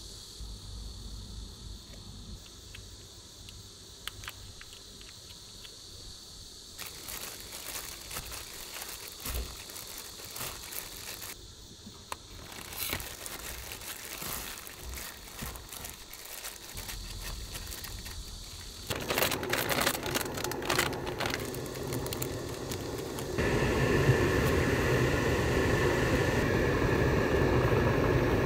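Thin plastic glove crinkling and crackling as a gloved hand mixes shredded chicken in a wooden bowl. Near the end a louder, steady noise comes in.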